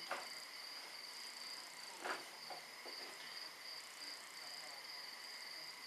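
Faint, steady high-pitched chirring of crickets at night, with a brief faint noise about two seconds in.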